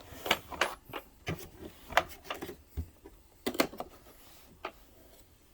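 A tool kit's carrying case and its contents being handled: a string of irregular clicks and knocks.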